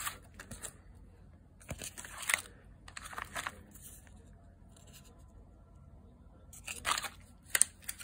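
Plastic food pouches crinkling and rustling as they are handled, in short bursts about two and three seconds in and again near the end, with one sharper crackle just before the end.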